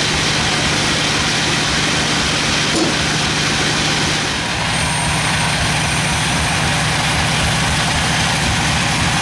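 Sawmill machinery running steadily, a heavy engine drone with a low, even pulsing beat. About halfway through, the tone shifts slightly and a faint high whine joins it.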